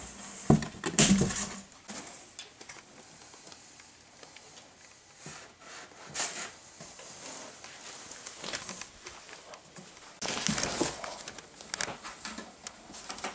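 Scattered rustling and light knocks, with louder bursts of rustling about a second in and again about ten seconds in.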